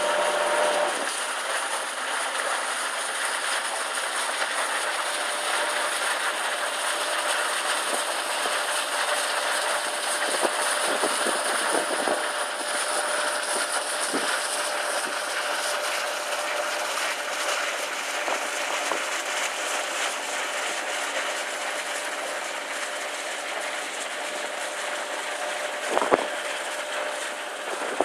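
Viksund motor sailor under way close by: its engine runs steadily under the hiss and splash of its bow wave and wash. A single knock comes near the end.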